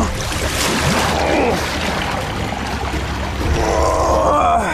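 River water splashing and dripping as a large piraiba catfish is hauled by hand over the side of a boat, out of a strong current.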